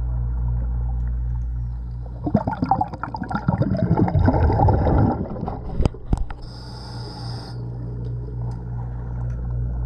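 Diver breathing through a scuba regulator underwater: about two seconds in, a burst of exhaled bubbles rumbles and crackles for some three seconds, then a short hiss of the next breath in, over a steady low hum.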